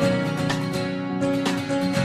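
An ensemble playing music, with strummed guitar chords over sustained pitched notes.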